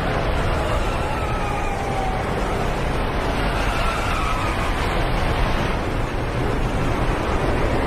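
Racing trucks' diesel engines running on a circuit: a dense, steady noise with engine pitch falling and then rising.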